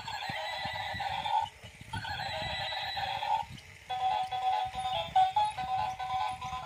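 Battery-powered toy zebra's built-in sound chip playing two electronic horse whinnies, then a beeping electronic tune from about four seconds in, over quick ticking from its motorised walking legs.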